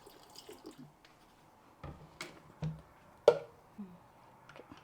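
Water dripping with a handful of short, sharp clinks and knocks, the loudest about three seconds in, as a small amount of water is added to rice in a pressure cooker.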